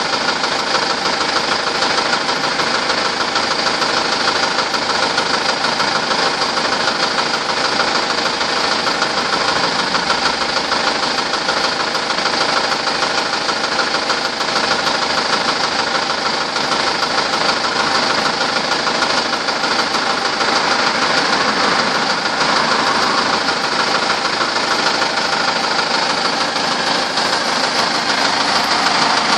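Hyundai Grand Starex engine running at a steady speed with a rapid, even knocking from the engine. The knock is the fault the owner is showing.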